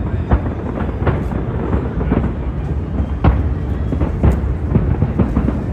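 Large fireworks display: a rapid run of booms and bangs, about two a second, over a continuous low rumble, with the loudest bang about three seconds in.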